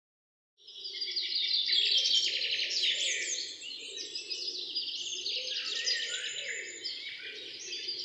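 Many birds chirping and twittering together in a dense chorus of quick, high calls that starts about half a second in.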